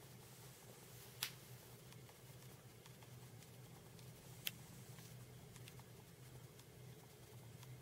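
Near silence: room tone with a steady low hum, faint scattered ticks, and two sharp clicks, about a second in and again past four seconds.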